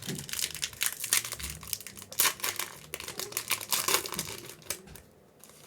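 Yu-Gi-Oh trading-card blister pack being opened by hand: plastic and foil packaging crinkling and tearing in a dense run of sharp crackles that stops about five seconds in.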